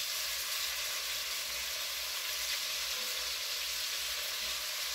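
Beef strips searing in hot butter in a Dutch oven, giving a steady sizzle.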